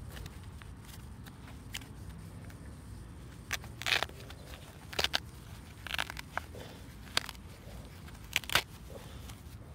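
Fabric lining and worn upper of a trashed Merrell Chameleon hiking shoe being torn by hand: a run of about eight short rips starting a few seconds in, the loudest near the end.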